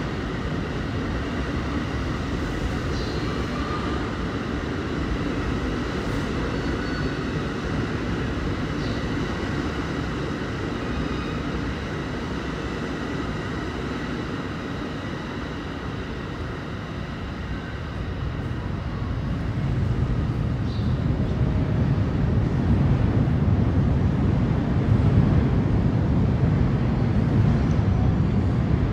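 New Jersey Transit multilevel commuter train pulling out of the station, its cars rolling past with a steady rumble and a faint high whine. A louder low rumble builds from about twenty seconds in.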